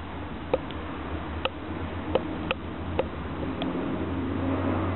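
Sharp, irregular ticks, about one a second, from rain dripping onto a hard surface, over a steady low hum. A swell of noise rises near the end.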